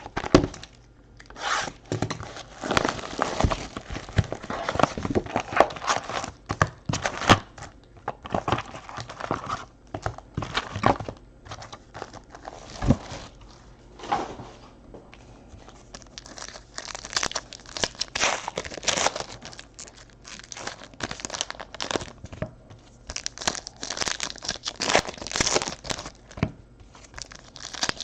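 Foil trading-card packs being torn open and their wrappers crinkled: a long run of irregular rips and crackles.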